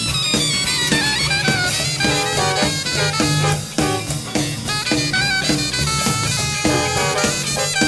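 Live jazz-funk band playing: a saxophone carries a melodic line, sliding down in pitch near the start, over a repeating bass line and drums.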